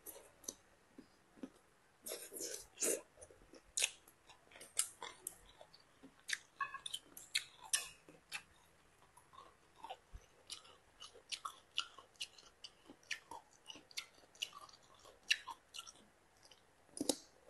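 Chewing and biting crisp Chinese kale (gai lan) stems, a rapid irregular run of sharp crunches and wet chews.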